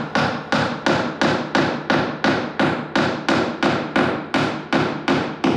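Hammer striking the wooden framing at the head of a sliding glass door, a steady run of sharp blows about three a second.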